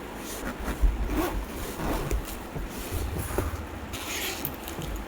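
Hands opening the packaging of a RadioMaster Boxer radio transmitter: a string of irregular scrapes and rustles, with a brief brighter hiss about four seconds in.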